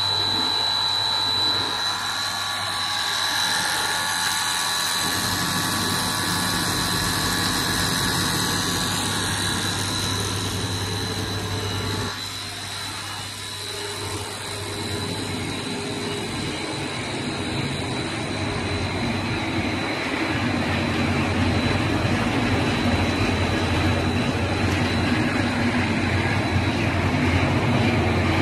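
Machinery of a puffed-snack extrusion line running: a snack extruder, dryer and flavouring drum with its conveyor. There is a steady high whine over a low hum, and a louder rushing machine noise builds through the second half.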